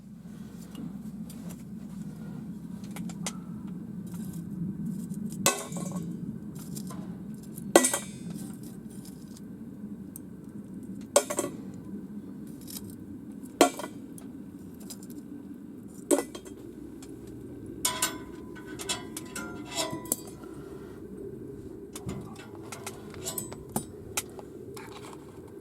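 Wood fire burning in a metal camp wood stove: a steady low rush, with sharp metallic clinks and pings every few seconds and quick runs of them in the last third.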